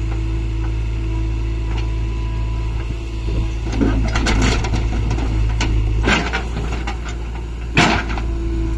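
Heavy diesel machinery running with a steady low drone, with several knocks and clunks: a cluster about halfway through, another a little later, and the loudest single bang near the end.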